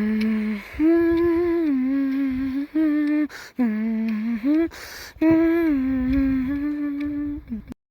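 A person humming a slow tune in long held notes that step up and down, with two short breaks of noise between phrases.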